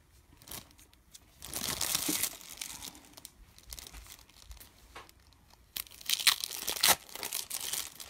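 Paper separator sheets from sliced cheese crinkling and rustling as slices are peeled off by hand, in two bouts, about two seconds in and about six seconds in.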